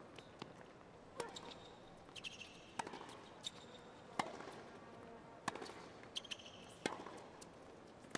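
Tennis ball struck back and forth with rackets in a baseline rally on a hard court: six sharp hits, one every second and a half or so, with short sneaker squeaks between some of them.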